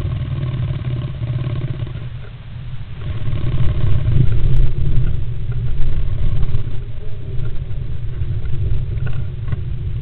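Great spotted woodpecker shifting and preening inside a wooden nest box, its body and feathers rubbing against the box close to the microphone as a rough, scratchy low rumble, louder from about three to seven seconds in.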